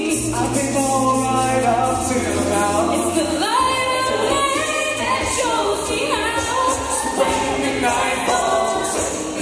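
Mixed-voice a cappella group singing into microphones, a female lead over backing harmonies and held low bass notes that change pitch every second or two.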